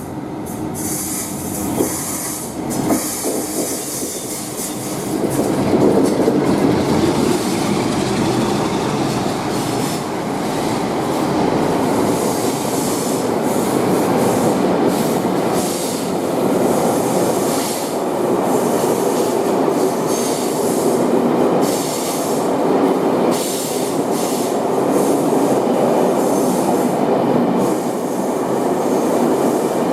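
A train running past on the rails, its noise growing louder a few seconds in and then holding steady, with repeated high-pitched wheel squeal.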